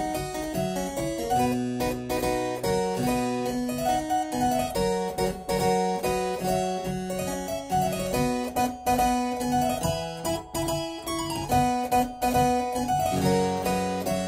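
Background harpsichord music: a lively piece of quick, short notes.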